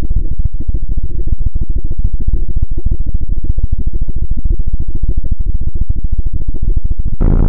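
Harsh-noise music: a loud, muffled low rumble chopped into rapid, irregular stuttering pulses, with the high end cut away. Near the end it switches abruptly to a brighter, fuller noise texture.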